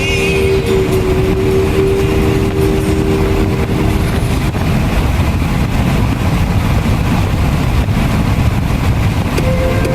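Strong wind buffeting the microphone, a loud, steady rumble. A steady hum sounds over it for the first few seconds and comes back near the end.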